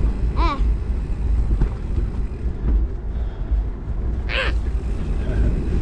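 Mountain bike rolling downhill on a sandy dirt trail: a steady low rumble of wind buffeting the microphone and tyres on the trail. A child's short cry comes about half a second in and a higher one about four seconds in.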